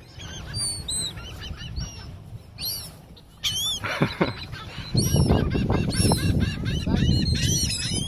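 A flock of gulls calling, many short, sharp cries overlapping one another. About five seconds in, a loud low rumble joins them.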